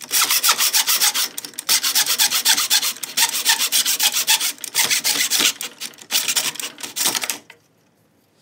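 Hand saw in a mitre box cutting through a small wooden block with quick, even back-and-forth strokes. The sawing stops about seven and a half seconds in as the cut goes through.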